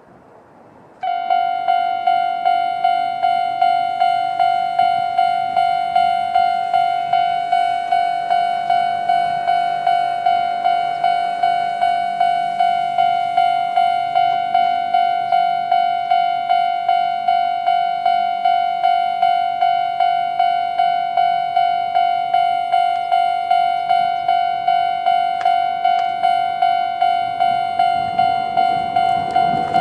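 Japanese railway level-crossing alarm switching on about a second in and ringing steadily: the old-type electronic ding-ding warning tone, repeating at a fast, even tempo, each ding fading before the next. It signals an approaching train.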